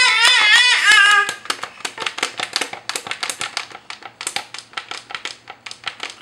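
A baby's wavering cry that stops about a second in, followed by a run of quick, irregular light taps and slaps.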